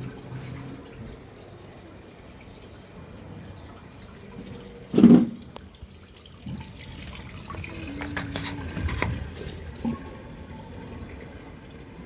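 Water running and splashing inside a washing machine, with a brief loud thump about five seconds in and a few clicks and rattles after it.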